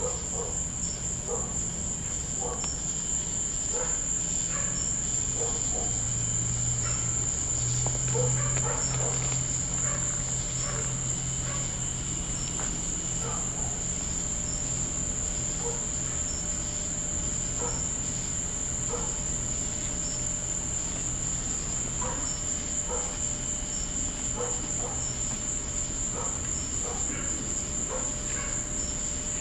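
Chorus of night insects trilling steadily at a high pitch, with a low hum beneath that swells for a few seconds about six seconds in.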